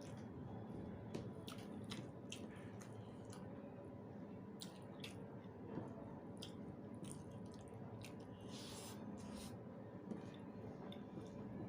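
Close-up eating sounds of rice with potato dal and egg curry: wet chewing with scattered mouth clicks and smacks, and a longer squishy rustle about nine seconds in.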